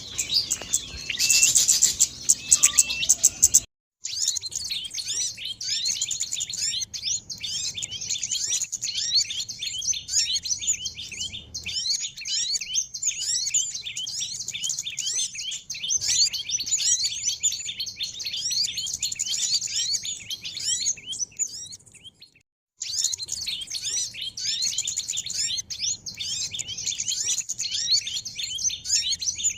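Small songbirds chirping and twittering in a dense, rapid stream of short, high, downward-slurred notes. The birdsong stops briefly twice, about four seconds in and again past the twenty-second mark, as one recording gives way to the next.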